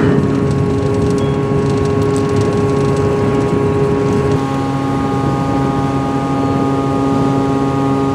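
Engines of the Natchan World high-speed catamaran ferry running, a steady droning hum of several held tones over a rushing noise. The pitch pattern shifts about four seconds in.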